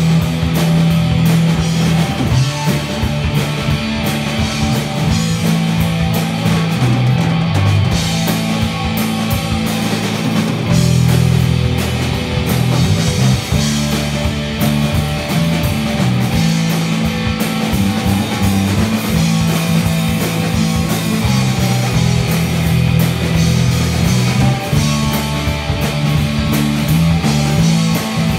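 Rock band playing live: guitar over a bass line that moves between a few held notes, with steady drum and cymbal hits.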